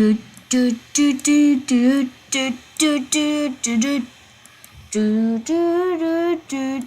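A child humming a wordless tune: a string of short held notes at changing pitches, with a few longer notes in the last couple of seconds.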